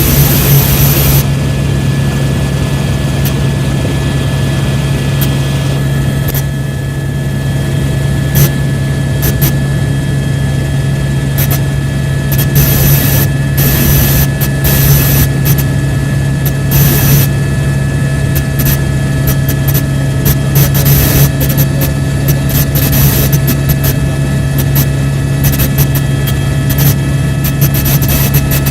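Helicopter's turbine engine and rotors running steadily in flight, a constant low hum with steady higher tones, and short bursts of hiss now and then.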